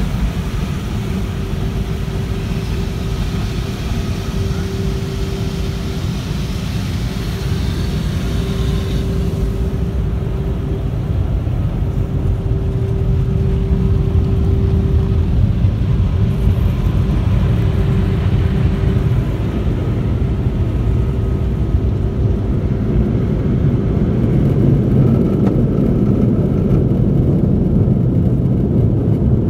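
Automatic car wash tunnel heard from inside the car: spray water hissing and splashing on the glass, then about ten seconds in the hiss drops away, leaving a low rumble from the rotating brushes and tunnel machinery. A steady hum runs underneath.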